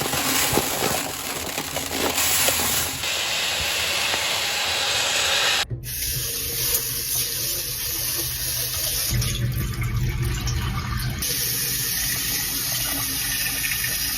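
Uncooked rice poured from a 20-jin sack into a storage bucket: a steady rushing hiss of grains, with a sudden break about halfway through after which the pouring carries on.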